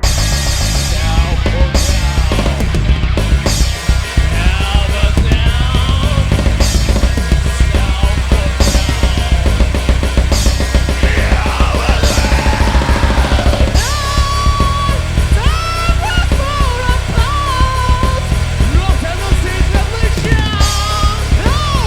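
Instrumental rock music: a full band with fast, driving drums and crashing cymbals kicks in suddenly, and a sustained, bending lead guitar line joins about two-thirds of the way through.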